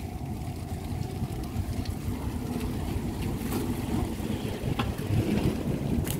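Wind rumble on the microphone of a camera riding a bicycle along a concrete lane, a steady low noise with a few light clicks.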